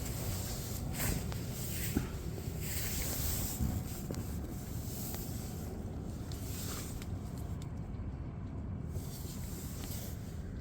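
Diesel air heater running steadily: a low continuous rumble with a hiss of moving air, broken by a few brief swells of noise and one click about two seconds in.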